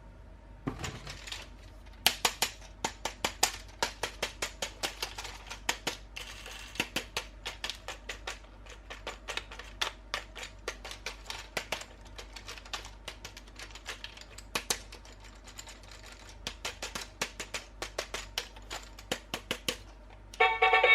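Sharp plastic clicks and taps, several a second and irregular, from handling a toy robot and its plastic packaging during an unboxing. They start about two seconds in, with a brief rustle around six seconds.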